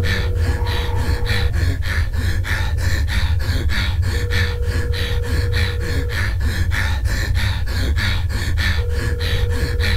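Telephone ringback tone from an outgoing call going unanswered: a steady tone sounding in rings about two seconds long, three times. Under it run a low drone and a fast, even pulsing.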